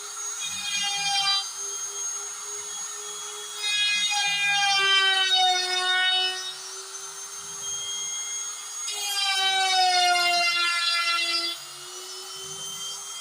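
DIY CNC router carving wood: a steady high spindle whine, with the stepper motors whining in shifting pitches as the axes start, stop and change speed every second or two.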